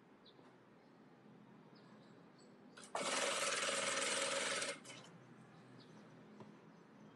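Industrial lockstitch sewing machine stitching a rolled hem in one run of about two seconds, starting about three seconds in and stopping sharply. Soft rustling of fabric being handled before and after the run.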